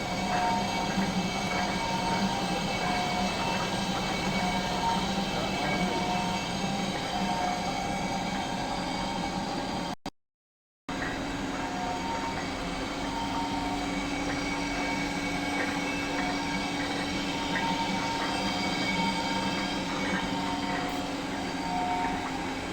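Machine-shop machinery running steadily through the repair of a bearing housing, with several steady tones and a faint pulse about once a second like a turning part. It cuts out for about a second about ten seconds in, then resumes with a lower steady hum added.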